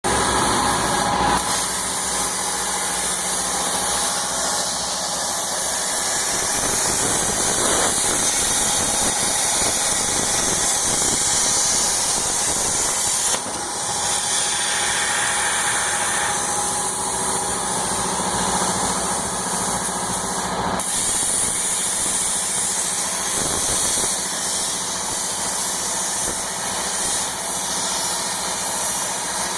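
CNC plasma torch cutting steel plate: a steady, loud hiss with a low hum underneath, and a short dip in level about halfway through.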